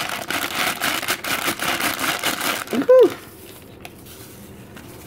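Plastic pudding-mix pouch crinkling as it is squeezed and shaken to empty the powder, for about three seconds. The crinkling ends with a brief rising-and-falling vocal sound, the loudest moment.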